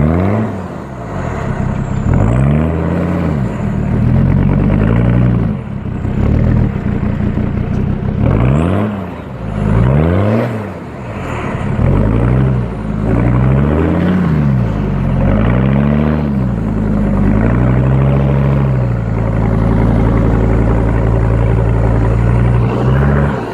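Mercedes-Benz G-Class engine revving up and down over and over, its pitch rising and falling about once a second, then holding at a steady pitch for the last few seconds.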